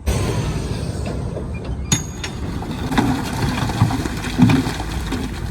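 Heavy construction machinery running with a steady rumble, with a sharp clank about two seconds in and a few low thumps near the middle and later.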